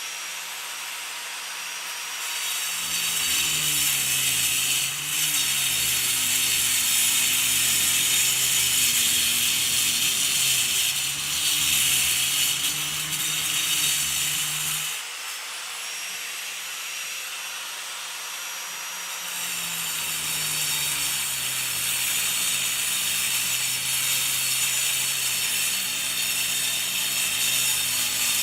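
Angle grinder cutting concrete: the disc spins with a steady high whine and hiss, then bites into the concrete for a louder, grittier stretch, eases off briefly around the middle, and bites in again.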